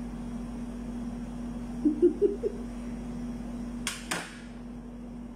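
A steady low electrical hum from a kitchen appliance runs throughout. About two seconds in there is a brief chuckle of four quick pulses, and about four seconds in two quick clicks of handling at the metal tray.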